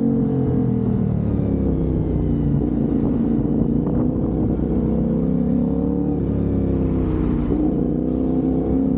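CFMOTO 450NK's 449 cc parallel-twin engine running through an aftermarket Orion exhaust, its note rising and falling gently with engine speed, with dips about six and seven and a half seconds in.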